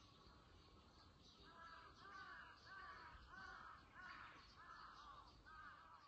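Crow cawing faintly in a run of hoarse caws, about two a second, starting about a second and a half in, with faint chirping of other small birds or insects behind it.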